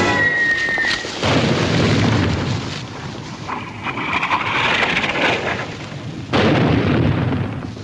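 Artillery shells bursting: two heavy blasts about five seconds apart, each dying away in a long rumble. The first comes just after a falling whistle.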